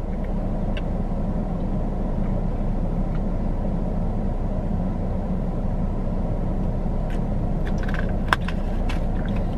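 Steady low hum of a car idling, heard inside the cabin. A few clicks and crinkles of a plastic water bottle come near the end as its cap is screwed on.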